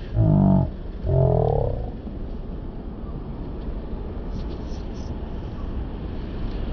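Two low, drawn-out vocal sounds from a person close to the microphone in the first two seconds, then steady city street traffic noise with a low rumble and hiss.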